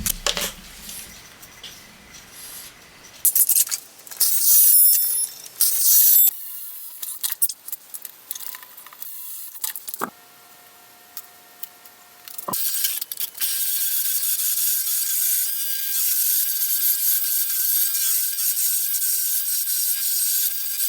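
Woodworking tool sounds from making a wooden pen: several short, loud bursts of cutting in the first few seconds, then, from about two-thirds of the way in, a steady hiss of a lathe tool cutting a spinning wooden pen blank.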